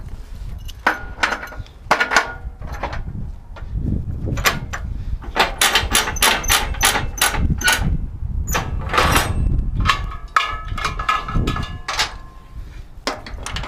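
Metal clanks and clicks as wheel straps are pulled over truck tires and hooked onto the perforated steel decks of a car-hauler trailer. A quick run of clicks comes about halfway through, at roughly four a second, and a short metallic ring follows.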